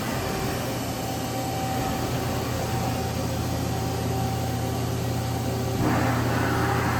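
Mazak VTC-200C CNC vertical machining center running with a steady machine hum and a few constant tones; about six seconds in, a rushing noise joins it.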